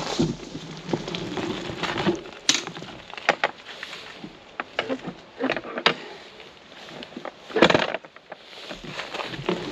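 Irregular sharp taps and knocks close to the microphone over a faint background hiss, the loudest a cluster about three-quarters of the way through.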